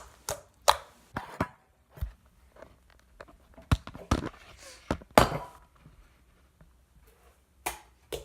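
Slime being squished and pulled by hand, giving a string of irregular sticky clicks and pops.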